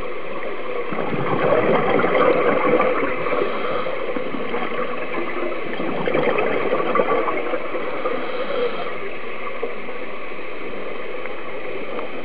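Underwater bubbling and gurgling sound effect: a steady watery rush that swells a little about two seconds in and again around six seconds.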